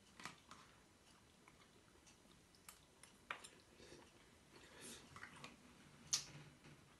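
Faint chewing: a few soft, scattered crunches and mouth clicks over a very quiet background.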